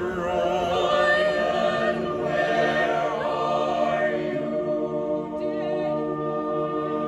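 Choir of mixed men's and women's voices singing a cappella, holding long sustained chords.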